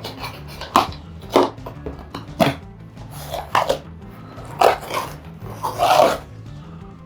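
Background music with a steady bass line, overlaid by a series of short, sharp sounds roughly once a second.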